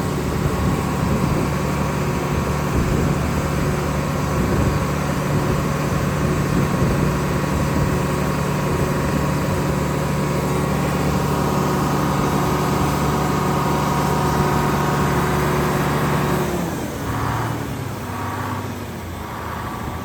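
Sawmill engine running steadily at raised speed, about 1500 RPM, driving the belt-driven hydraulics for the carriage feed. About sixteen seconds in its pitch and loudness drop as it slows.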